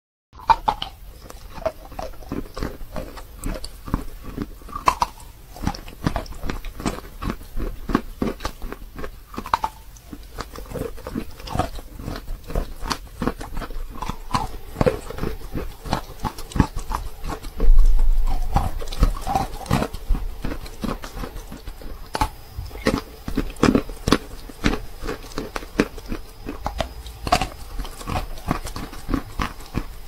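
Close-miked biting and chewing of a wet block of sawn Belgorod chalk: irregular crisp crunches and wet crackles, several a second, with one louder thump about 18 seconds in.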